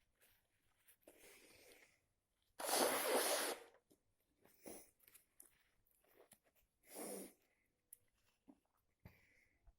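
A person with a cold sneezing: one loud, explosive sneeze about two and a half seconds in, after a quieter breath in, then a second, shorter burst later, with faint sniffs and breaths between.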